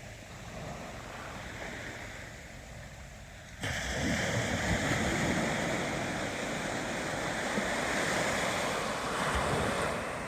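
Ocean surf, waves washing in as a steady rush of noise. It jumps suddenly louder about three and a half seconds in and stays loud until it eases near the end.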